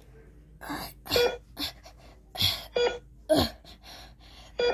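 Heart-monitor beeps, a short electronic tone about every second and a half to two seconds in time with the ECG trace. Between the beeps come breathy, gasping breath sounds.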